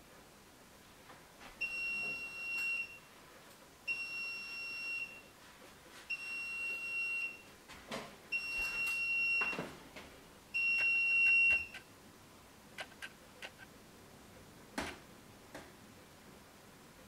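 Kambrook Simple Soup Maker beeping five times, long steady beeps about two seconds apart, signalling that its cooking cycle has finished. A few light clicks and knocks follow.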